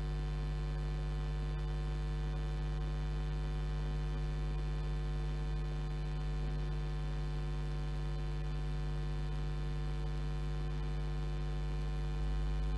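Steady electrical mains hum with a stack of buzzing overtones, unchanging throughout. It is interference in the broadcast audio, with no track or engine sound heard.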